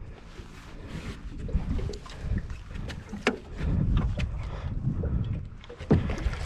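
Wind rumbling on the microphone, with scattered clicks and knocks. Near the end comes a splash as a hooked Chinook salmon thrashes at the surface beside the boat.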